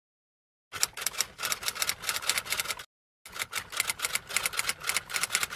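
Typewriter keys clacking rapidly, as a typing sound effect, at about six keystrokes a second. It comes in two runs of about two seconds each, with a short pause between them.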